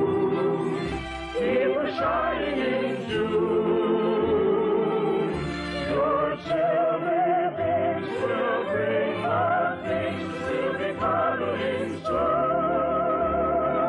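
Operetta singing with strong vibrato and long held notes, over an orchestra, as a closing musical number.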